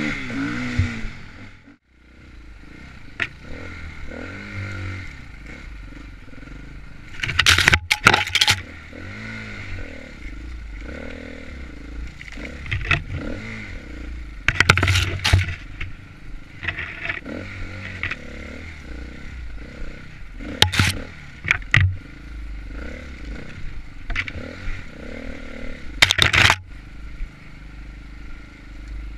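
Dirt bike engine revving up and down continually as it is ridden over rough off-road terrain. Four loud clattering bursts break in over it.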